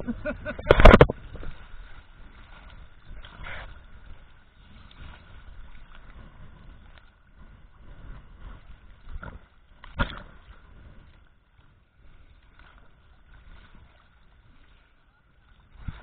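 Choppy sea water sloshing and slapping around a camera in a waterproof housing at the surface, heard muffled. There is a loud splash about a second in and a few sharper knocks later, over a faint steady high hum.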